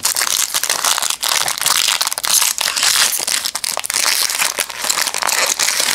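Foil wrapper of a 2004 Fleer Sweet Sigs football card pack crinkling and tearing as it is pulled open by hand, a dense continuous crackle.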